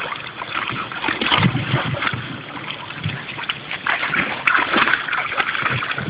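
Weimaraner wading and splashing through shallow water, with irregular splashes and sloshing as it churns the water.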